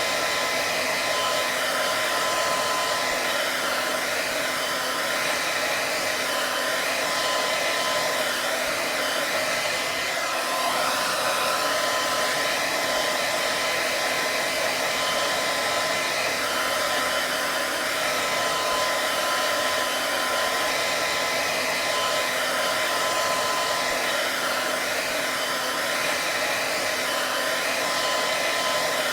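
Hair dryer running steadily at one speed: a continuous rush of air with a faint steady whine, unchanging throughout.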